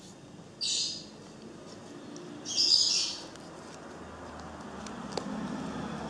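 Nylon flashlight holster being handled: two short, hissy rustling scrapes of fabric.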